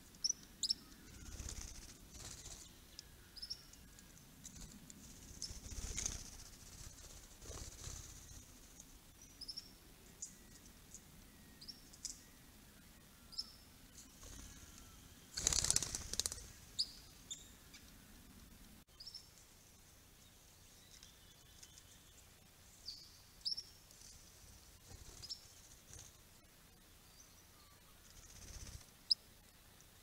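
Small birds chirping, short high calls scattered throughout, with a few louder rushing bursts, the loudest about halfway through.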